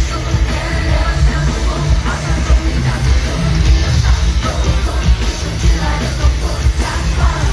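Live pop concert music through a large PA heard from the floor: a heavy, booming bass beat with singing over it, and some yelling.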